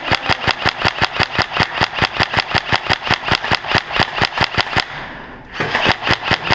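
Tokyo Marui HK416D airsoft electric gun firing a long string of rapid shots, about seven a second, pausing for a moment, then firing a short second string near the end.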